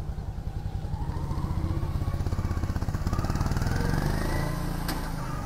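A motorcycle engine passing by, rising in pitch and growing louder, then easing off near the end.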